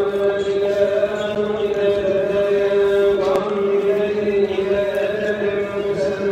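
A voice chanting one long held note with a slight waver, in the manner of Islamic chanting before the dawn prayer.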